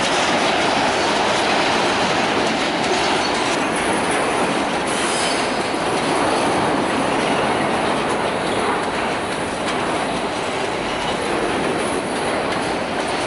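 Freight train of steel hopper wagons rolling past close by, its wheels running over the rails in a steady, loud, unbroken noise.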